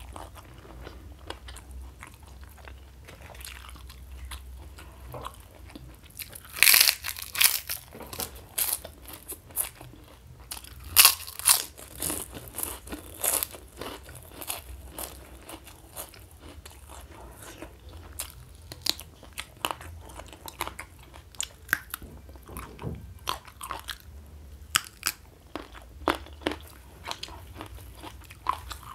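A person chewing food close to a clip-on microphone, with scattered small crunches and two runs of loud crunchy bites, about 7 and 12 seconds in.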